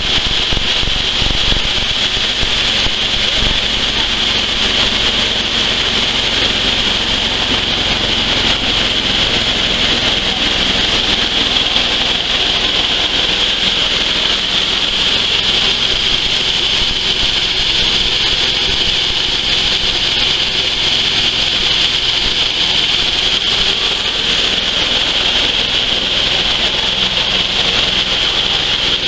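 Dry coffee huller running steadily, an unbroken machine noise with a strong high hiss.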